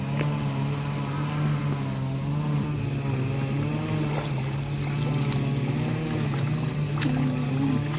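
A small engine droning steadily, its pitch wavering slightly, with a single sharp click about seven seconds in.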